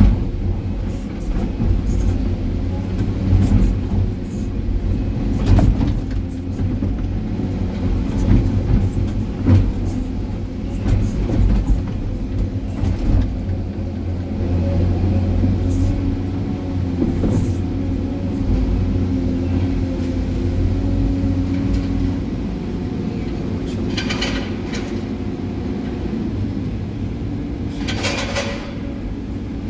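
Excavator's diesel engine and hydraulics working under load, heard from inside the cab, with knocks and scrapes from the bucket digging into rocky soil.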